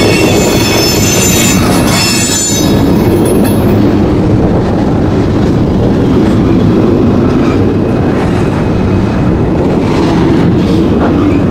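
Loaded coal hopper cars rolling past close by: a steady rumble and clatter of steel wheels on the rails. A high squeal rides over it for the first few seconds, then fades.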